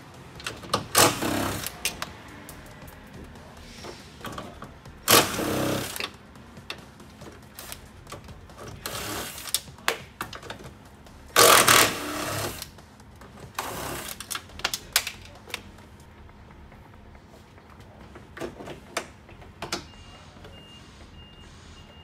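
A handheld power tool runs the 10 mm nuts off a factory door mirror's mounting studs in about five short bursts, the loudest about halfway through, with small clicks and knocks between them.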